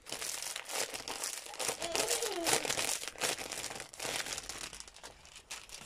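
Clear plastic wrapping crinkling in irregular crackles as a rolled diamond-painting kit is handled and unwrapped.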